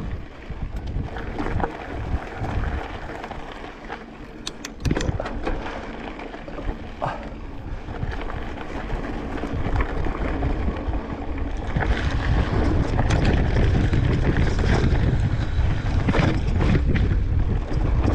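Wind buffeting the microphone in a steady rush, with a few sharp clicks and knocks about five seconds in. The rumble builds and is louder through the second half.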